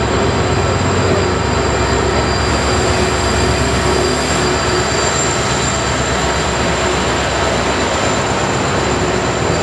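Indian Railways WDP4 diesel locomotive (EMD two-stroke V16) running as it pulls in and passes close by, followed by its passenger coaches rolling past. The noise is loud and steady, with a few faint steady tones over it.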